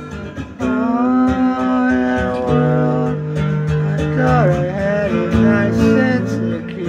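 Music: a song with plucked acoustic guitar and a singing voice holding long, gliding notes.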